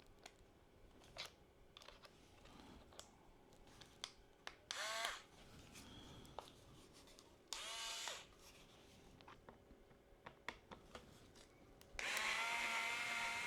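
Small motor of a cordless electric screwdriver whirring in two short bursts of about half a second, each starting with a quick rise in pitch, then running steadily near the end as it undoes the pentalobe screws of a laptop's bottom case. Light clicks and taps of the bit and screws come between the bursts.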